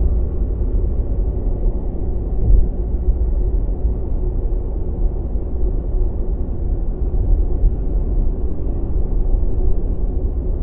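Steady low rumble of tunnel ambience, a deep even drone without distinct events.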